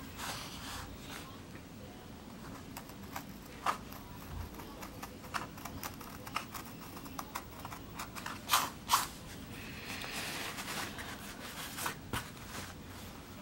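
Hand carving gouge cutting into a plywood woodcut block: short scraping cuts and ticks come irregularly, the two loudest close together a little past the middle, followed by a longer scrape.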